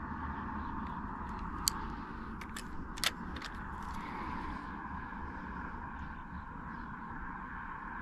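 Steady outdoor background noise, a low rumble under a hiss, with a few sharp clicks between about one and a half and three seconds in, the loudest just after three seconds.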